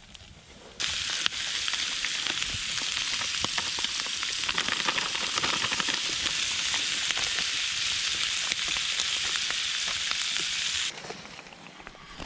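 Loud steady sizzling at a campfire, with scattered crackles and pops; it cuts in about a second in and cuts off abruptly near the end.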